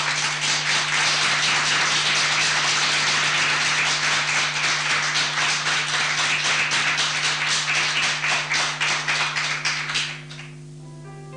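Studio audience applauding, dense clapping that dies away about ten seconds in, after which quiet music begins. A steady low hum runs underneath.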